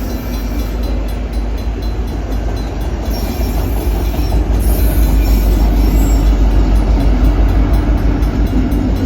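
Norfolk Southern manifest freight train's cars rolling past on the rails, a steady low rumble with wheel clatter, growing louder about halfway through.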